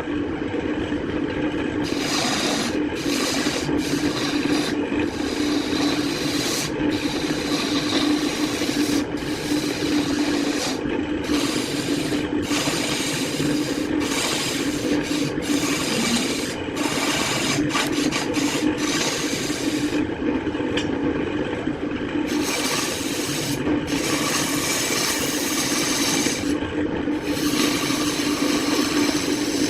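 An electric power tool working wood: its motor runs at a steady pitch, under a rough scraping noise from the cut that breaks off briefly many times as the tool lifts from and meets the wood again.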